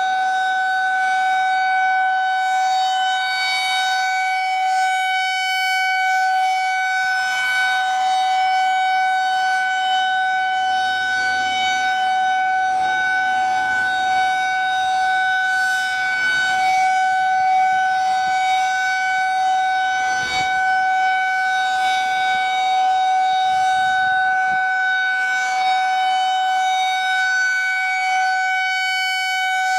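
Federal Signal 2001-SRN electromechanical outdoor warning siren sounding a loud, steady single tone at a held pitch, its level swelling slightly. It is sounding for a scheduled siren test.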